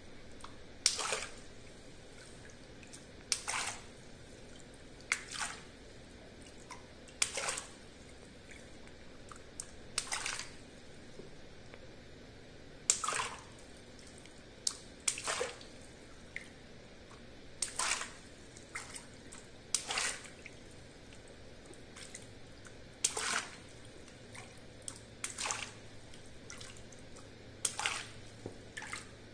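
Small water balloons being pricked with a pin, about a dozen sharp pops a couple of seconds apart, each followed by a short splash and drip of water as the balloon bursts.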